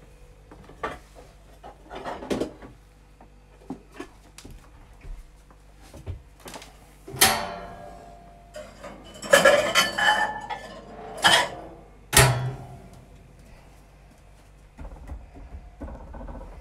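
Metal kitchenware clattering and clinking as a low kitchen drawer is pulled out and rummaged through. Light knocks come first, then several loud clanks between about seven and twelve seconds in.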